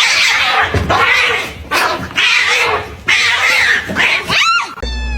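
A domestic cat giving a string of harsh, noisy yowls, about five in a row, roughly one a second. Near the end comes a short meow that rises and falls.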